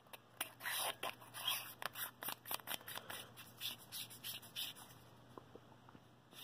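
Hands handling a Kdlitker E6 P60-style flashlight: a string of quick, irregular scratchy clicks and scrapes of fingers on the metal body, thinning out after about five seconds.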